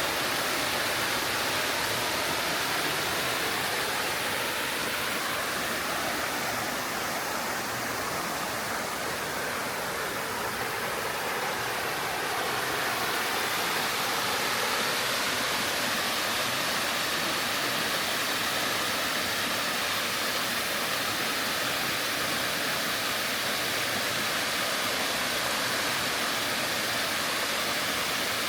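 Clear mountain stream cascading over bedrock in a series of small waterfalls: a steady, even rushing of water.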